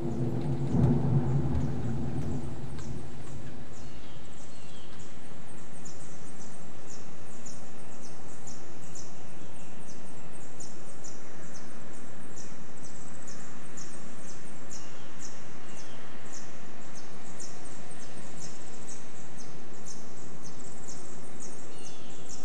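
Steady rain ambience with a low rumble of thunder in the first few seconds. A rapid, regular high chirping of crickets runs through it.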